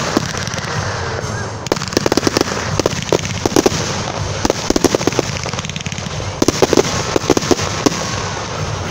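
Aerial fireworks bursting in quick succession: many sharp bangs and pops over a steady crackle.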